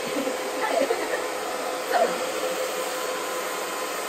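Hand-held hair dryer running steadily while blowing on a section of hair held on a round brush: a constant rush of air with a steady tone in it.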